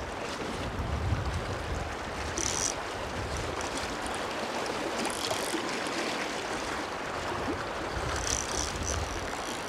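Steady rush of river water, with wind buffeting the microphone near the start and again near the end, and a few short high-pitched sounds over it.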